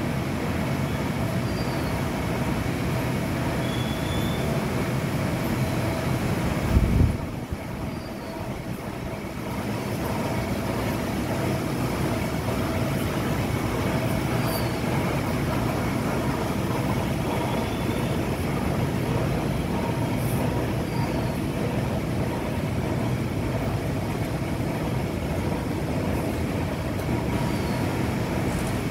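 Six-colour shaftless rotogravure printing press running: a steady mechanical din with a couple of steady tones in it and short faint high squeaks every few seconds. A loud low thump comes about seven seconds in, after which the noise dips for a couple of seconds.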